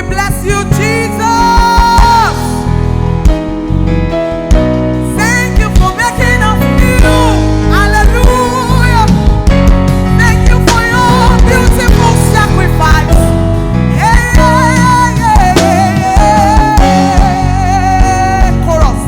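Live worship band music: a singer holding and sliding long notes without clear words over guitar and a full, steady bass.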